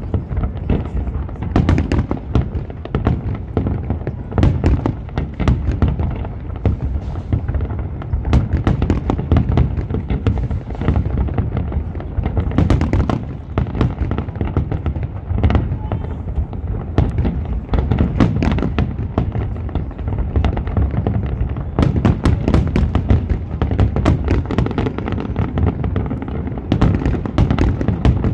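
Aerial fireworks shells bursting in a continuous barrage: many bangs and deep booms in quick succession, with no break.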